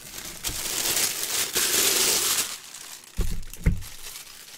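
Clear plastic bag crinkling loudly as a full-size football helmet is pulled out of it, then two short thumps a little after three seconds in as the helmet is set down on the table.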